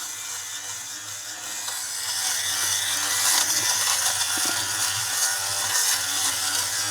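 Battery-powered Philips fabric shaver running, its motor humming steadily as the head rasps across a garment, shaving off the pills of lint. The rasping grows louder about two seconds in.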